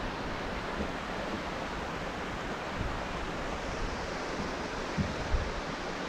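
Steady rushing noise of wind and water, with two short low thumps about five seconds in.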